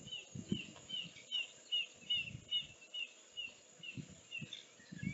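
A bird calling over and over in short chirps that each fall in pitch, about three a second and spacing out near the end, over irregular low rumbles.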